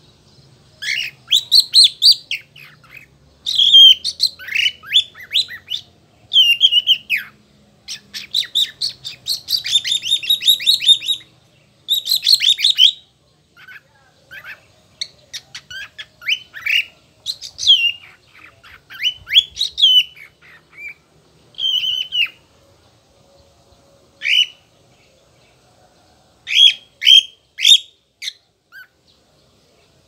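Lutino cockatiel singing: a loud run of chirps, sweeping whistles and rapid chattering warbles in phrases of a second or two, broken by short pauses. The phrases come thick in the first half and give way to sparser short calls in the second half.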